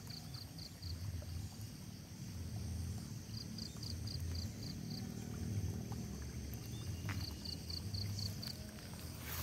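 Paddy-field ambience: a bird calls a quick run of high, evenly spaced chirps, about six a second, three times, once every three to four seconds, over a low, uneven rumble.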